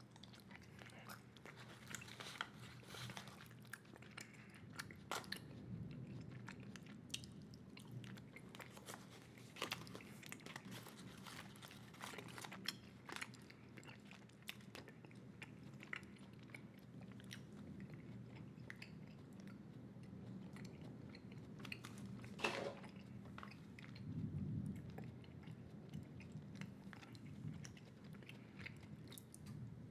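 Wet chewing of a large wad of Big League Chew bubblegum-flavored gum, with many irregular sticky clicks and smacks.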